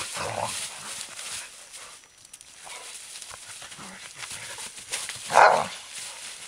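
Entlebucher mountain dogs play-fighting in dry fallen leaves: leaves rustling and crunching under their paws, with brief dog noises at the start and one loud, short bark about five seconds in.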